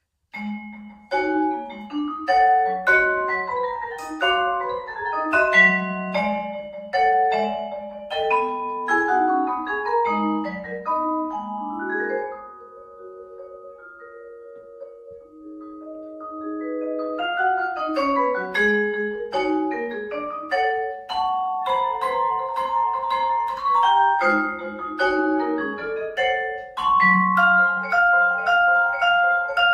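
Vibraphone played with mallets: quick, dense runs of ringing notes begin abruptly, thin out midway to a few slow, softer, long-sustained notes, then build back into fast figures.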